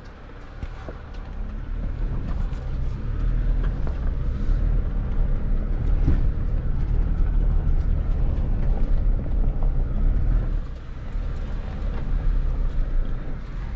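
Ford Bronco 4x4 driving off-road in four-wheel drive. Its engine and drivetrain rumble, rising sharply about a second in as it moves off and easing briefly near the end, with scattered clicks of rocks and gravel under the tyres.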